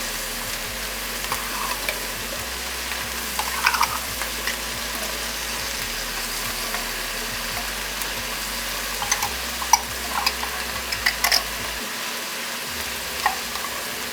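Skillet of ground turkey mixture sizzling on the heat while a spatula stirs it, with short scrapes and taps of the spatula against the pan now and then, most often around the middle and near the end.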